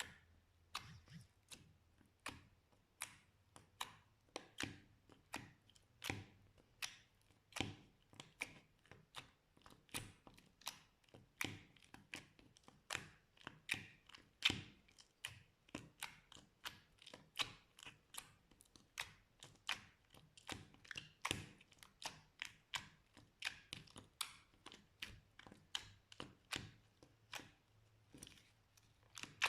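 Slime being pressed and folded by hand, making a steady run of sharp clicks and pops, a little over two a second.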